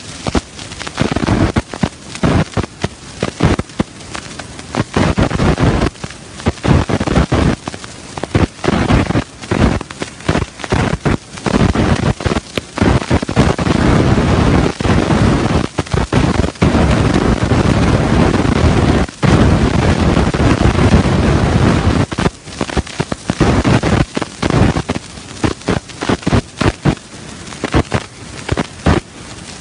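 Wind buffeting the microphone in loud, irregular gusts, a low rumbling roar that covers most other sound.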